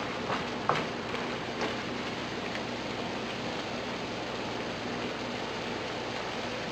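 Pork menudo stew in tomato sauce cooking in the pan, a steady hiss like rain, with a few light clicks of the stirring utensil against the pan in the first couple of seconds.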